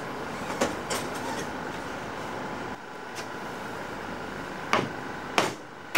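A steady mechanical rushing noise, a little quieter from about three seconds in, with several sharp knocks or taps scattered through it, the loudest near the end.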